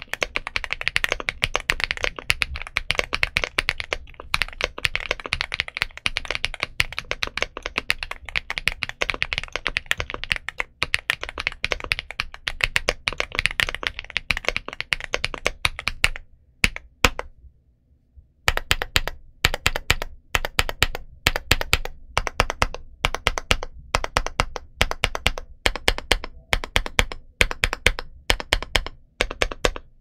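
Feker Galaxy80 mechanical keyboard with Feker Marble White linear switches and PBT MDA keycaps, typed on quickly with both hands. After a pause of about two seconds just past halfway, the keystrokes come slower and more spaced out.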